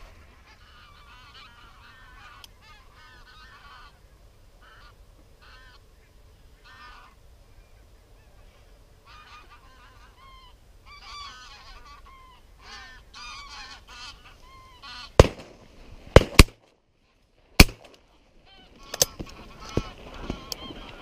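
Geese honking as flocks pass overhead, many short calls overlapping. From about fifteen seconds in, several very loud shotgun shots crack out among the calls.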